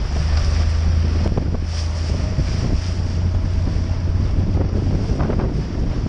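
Wind buffeting the microphone over the steady low hum of an inflatable boat's engine running under way, with water rushing and splashing past the hull.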